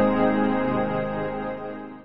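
Background music with sustained chords, fading out toward the end.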